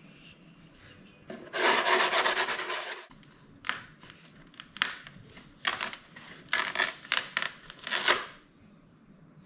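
Sanding block rubbed lightly over a cured fiberglass and resin patch on a balsa wing, a steady rasp of about a second and a half, knocking down the nibs on the flow coat. After that comes a string of short scraping, crackling noises as the stiff fiberglass patch is worked loose and peeled up off the wing.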